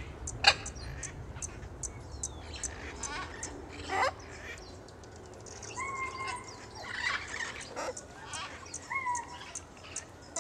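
Scarlet macaw giving harsh squawks, the loudest about half a second in and another about four seconds in, mixed with short whistled notes and many brief high chirps.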